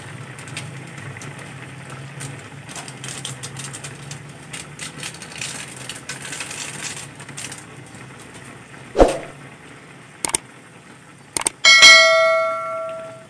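A pan of pork adobo simmering with a faint bubbling hiss over a steady low hum, broken by a knock about nine seconds in and a few sharp clicks. Near the end a loud bell-like ding from a subscribe-button animation rings out and slowly fades.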